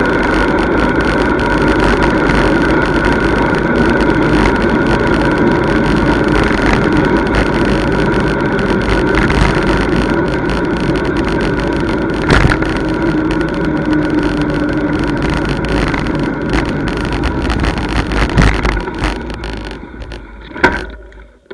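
Steady rushing wind and road noise on a camera moving along a street, with a faint steady whine. There is one sharp knock about halfway through. Near the end the rushing dies away as the camera slows to a stop, with a couple of clunks.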